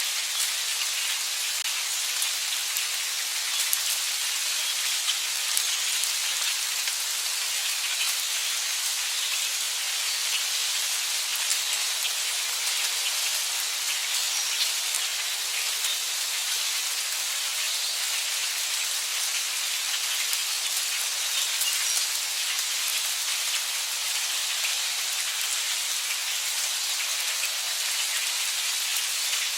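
Heavy rain falling steadily: a dense, even hiss with scattered individual drop ticks.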